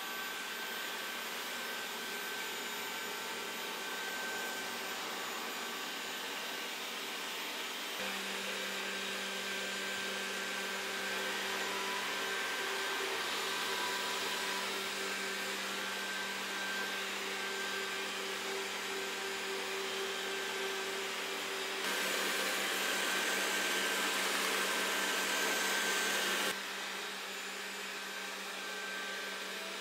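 Robot vacuum cleaner running: the steady whir of its suction fan and brushes with a faint whine. It is louder for about four seconds near the end, then drops back abruptly.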